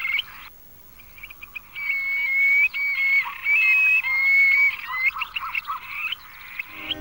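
Shrill wild animal calls: a dense chirping chorus that breaks off about half a second in, then, after a short lull, long whistled notes held on one pitch that jump up and down, with short chirps between.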